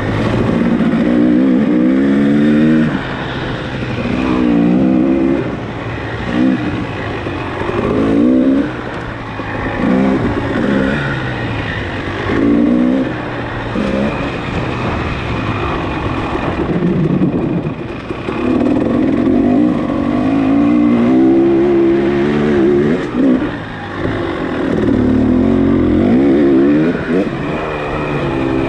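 Off-road motorcycle engine ridden hard in a sprint enduro race. It revs up over and over as the throttle is opened and shut through the terrain.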